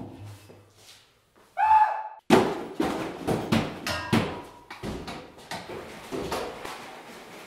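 A short loud cry, then a crash and a string of thuds and knocks that weaken over several seconds, as of a person falling among objects.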